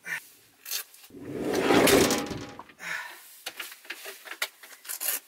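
Handling noises in a small enclosed space: a swelling rustle lasting under two seconds, then a run of light clicks and knocks as objects are moved about.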